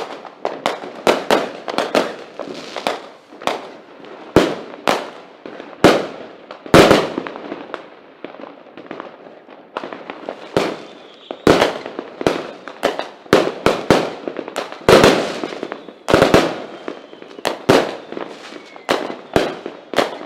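A 50-shot firework cake firing its aerial shots in a rapid, uneven run of sharp bangs, about two a second, each bang trailing off briefly.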